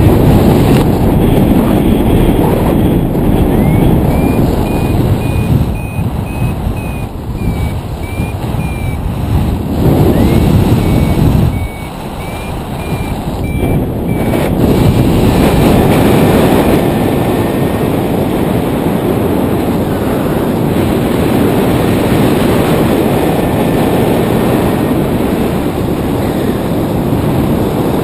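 Wind rushing over the microphone of a camera on a paraglider in flight. In the first half, a variometer beeps in two runs of short high beeps, each rising in pitch as it starts, the signal that the glider is climbing in lift.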